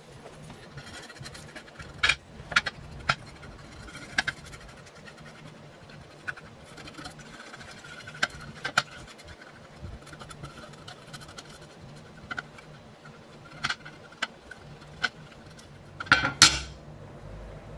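A paintbrush scrubbing paint stripper over a metal bell-set base plate in a glass dish, with scattered sharp taps and clinks of brush and plate against the glass. The loudest is a short scrape and knock of the plate on the glass near the end as it is handled.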